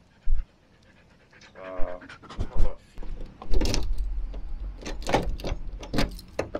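A dog panting hard, out of breath after swimming, in repeated short breaths that grow stronger from about halfway through.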